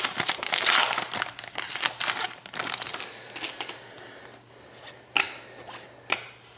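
Trading-card pack wrapper being torn open and crinkled, loud for the first three seconds, then quieter handling with two sharp clicks near the end.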